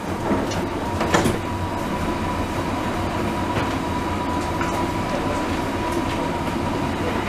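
Dubai Metro train car heard from inside: a steady low rumble with a thin, steady whine, and a single knock about a second in.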